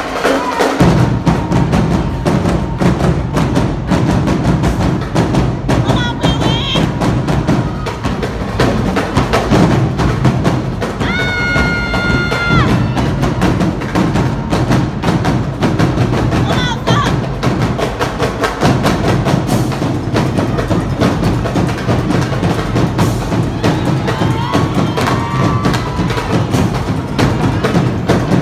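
Loud, drum-heavy dance music with a strong bass beat and sharp wood-block-like hits, played over a loudspeaker for a team dance routine, with a long held note about halfway through.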